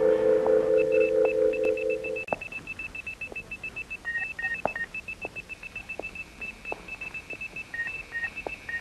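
Rapid, irregular series of short high-pitched electronic beeps, joined about four seconds in by occasional beeps at a lower pitch, with a few soft clicks. A held musical chord sounds underneath for the first two seconds, then stops.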